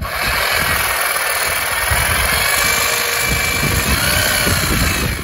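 Corded reciprocating saw cutting through a cast iron soil pipe, running loud and steady at full speed; it stops abruptly near the end.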